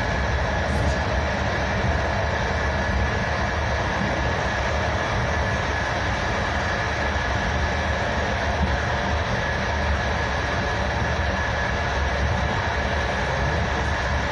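Steady rumble of a passenger train running at speed, heard from inside the carriage, with a thin steady whine over it and no rail-joint clicks.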